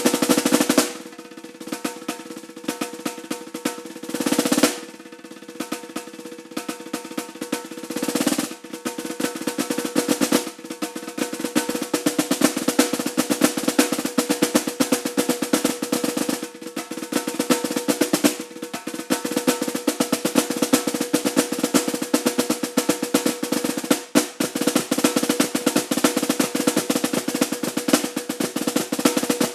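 Solo snare drum played fast: dense rapid strokes and rolls with the drum's ring sounding through. There are short, loud rolls about a second in and around four and eight seconds in, and a brief gap near 24 seconds.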